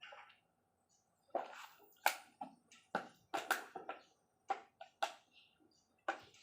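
Irregular sharp metallic clicks and clinks, about a dozen in a few seconds, as metal engine parts are handled and set in place while fitting the crankshaft and its bearings.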